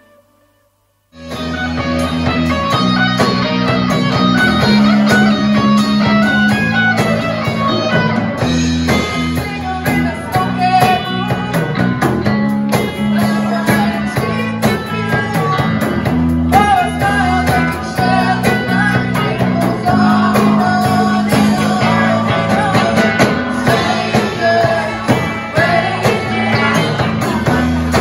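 A rock band playing live, with electric guitar, bass, drums and a singer. It starts suddenly after about a second of silence.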